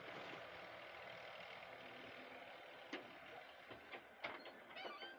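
A Hitachi wheeled excavator's diesel engine running steadily, with several sharp metallic clanks and a quick run of ticks from about three seconds in as the bucket and boom work.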